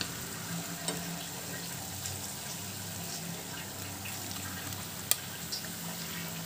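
Cornflour-coated poha-and-potato cutlets shallow-frying in hot oil: a steady sizzle. A few light clicks come over it, with one sharp click about five seconds in, as a fork lifts the cutlets out.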